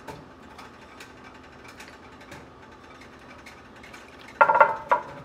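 Sauce simmering around a pot roast in a roasting pan, with faint irregular popping and ticking. About four and a half seconds in, two sharp metallic clanks of cookware ring out, half a second apart, the loudest sound here.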